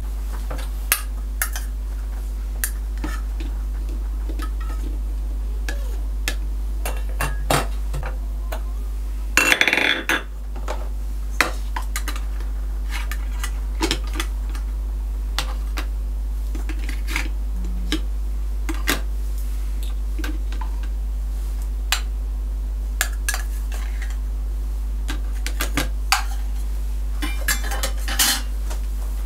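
Toy pots, pans, lids and plastic play food being handled and set down: scattered light clicks and knocks of plastic and thin metal, with a louder clatter about ten seconds in and a quick run of clicks near the end. A steady low hum runs underneath.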